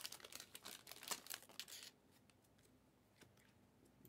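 Trading-card pack wrappers crinkling and tearing as packs are ripped open and handled, a quick run of crackles for about the first two seconds, then almost nothing.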